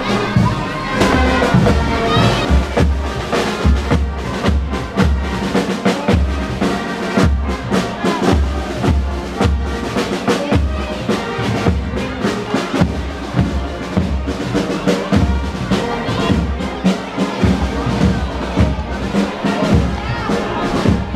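Brass band playing a march, trumpets over a steady bass drum beat, with the murmur of a walking crowd beneath it.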